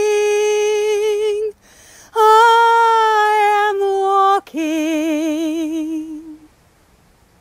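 A woman singing unaccompanied, holding long notes with short breaths between them. The last note is lower, with a wide vibrato, and fades away about six seconds in.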